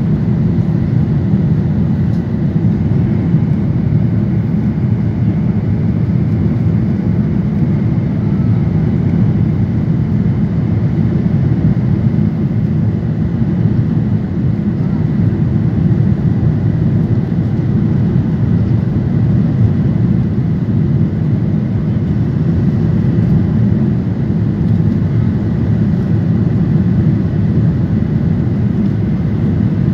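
Cabin noise of a Ryanair Boeing 737 on approach with its flaps extended: a steady low rumble of jet engines and rushing air, heard from inside the cabin, with a faint high whine above it.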